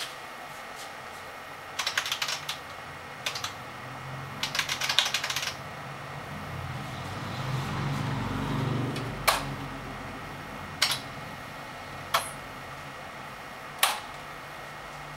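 Typing on the IBM PC 5150's keyboard, a Model F buckling-spring board, in three short bursts of key clicks: the BASIC LOAD command being entered to load a program from cassette. A low rumble swells and fades around the middle, then four single sharp clacks follow about a second and a half apart, the last from a button on the cassette recorder being pressed down.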